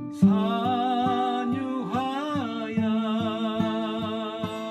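Background music: a voice singing a slow melody with vibrato over regularly plucked acoustic guitar.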